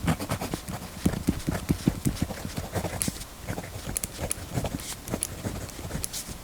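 The 0.5 mm mechanical pencil of a Uni Jetstream multi-pen writing on paper on a desk: a quick, irregular run of taps and scratches from the pencil tip, with a few sharper clicks.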